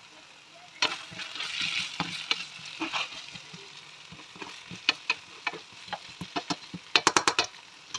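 Chopped vegetables and tomato paste sizzling in a nonstick frying pan while being stirred with a plastic spatula, with scraping and clicking of the spatula against the pan; the paste is being cooked out. Near the end comes a quick run of sharp taps.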